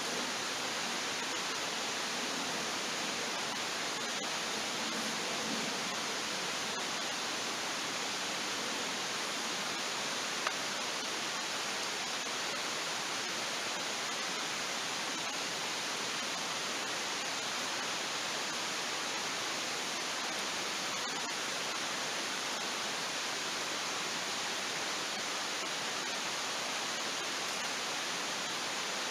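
Steady, even rushing noise that does not change, with one faint click about ten seconds in.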